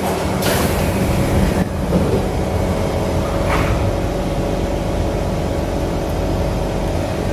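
Metro train doors sliding shut with a rush of air, closing with a thud about a second and a half in, followed by a lighter knock a couple of seconds later. Under it, the steady hum of the train car's equipment.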